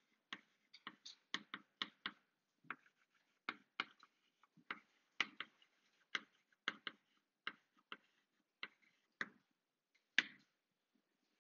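Chalk writing on a blackboard: faint, irregular clicks and taps, about two a second, as each stroke of the letters hits the board, stopping shortly before the end.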